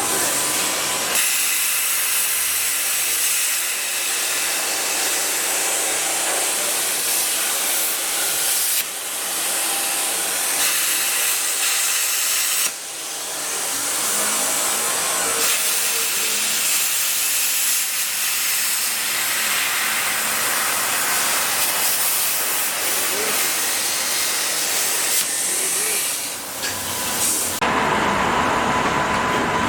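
Loud, steady hissing that shifts in tone a few times, with a brief dip about thirteen seconds in.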